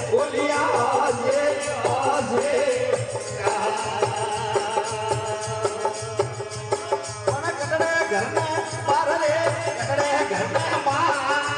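A Rajasthani devotional bhajan to Mahadev, sung over jingling hand percussion that keeps a steady beat.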